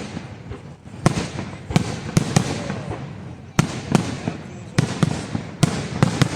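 Fireworks going off in an aerial display: about ten sharp bangs from shells bursting at irregular intervals, with crackling between them.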